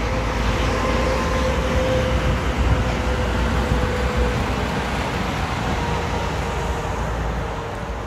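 Steady road-traffic noise from a multi-lane highway: a wash of tyres and engines with a faint held whine through it, easing a little near the end.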